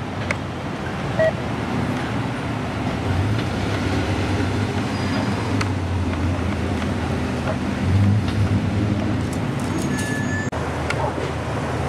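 Road traffic with vehicle engines running, a steady low rumble that swells louder about three seconds in and again about eight seconds in.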